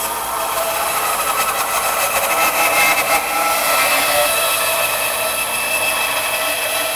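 Rikon 10-353 3-horsepower bandsaw resawing a thick, dried hard maple stump, its blade fed slowly through the hard wood: a steady sawing noise with a constant whine.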